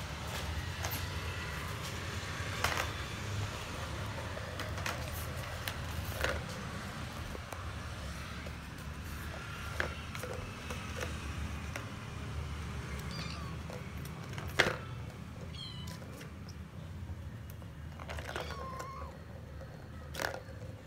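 Kittens mewing now and then in short high calls, among scattered light knocks and clicks, the loudest about two thirds of the way through.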